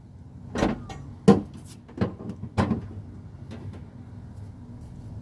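A few sharp knocks and clatters of tools and metal parts being handled, four of them in the first three seconds and fainter ticks after, over a steady low hum.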